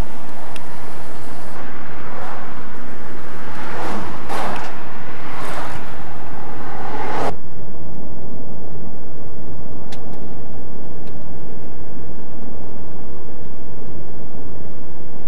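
Road and engine noise heard from inside a moving car. A louder rushing spell in the first half cuts off suddenly about seven seconds in, leaving a steadier, quieter rumble.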